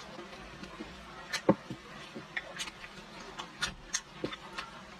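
Scattered small clicks and taps of eating with chopsticks, one sharper click about a second and a half in.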